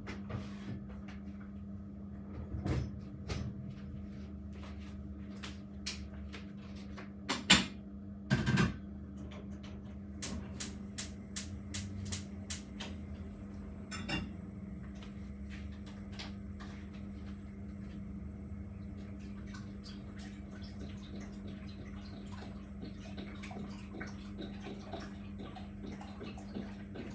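A steady electrical hum with scattered household knocks and clicks: two louder knocks about eight seconds in, then a quick run of light clicks, after which a faint high whine joins the hum.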